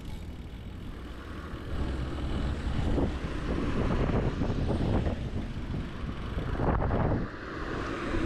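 Wind buffeting a bicycle-mounted action camera's microphone while riding, a gusty rumble over a steady rush, louder from about two seconds in and dipping briefly near the end.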